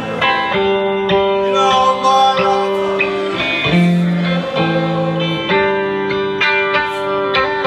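Electric guitar played live in an instrumental passage: held notes that change every second or so, over picked strings.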